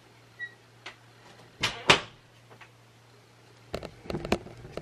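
Cupboard doors and things in a kitchen pantry being handled: a couple of faint clicks, then two sharp knocks less than half a second apart about a second and a half in, and a quick run of clicks and rattles near the end.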